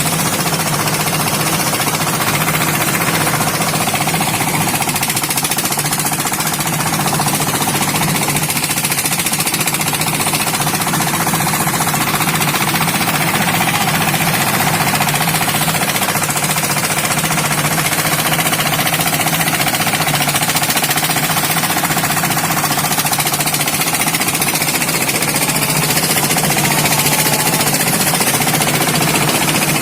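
Engine-driven rice threshing machine running steadily under load as paddy is threshed, a loud continuous mechanical din.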